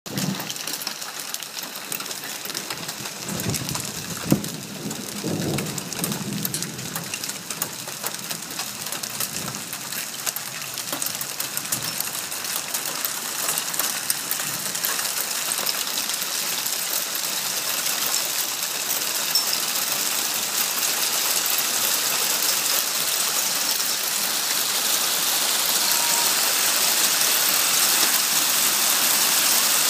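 Hail and rain pelting parked cars and the street: a dense hiss packed with tiny clicks that grows steadily louder. A brief low rumble comes a few seconds in.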